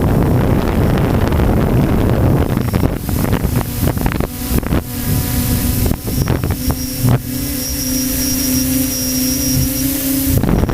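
Gusting wind buffeting the microphone, then from about four seconds in a model aircraft's motor running at a steady pitch, with gusts still breaking over it.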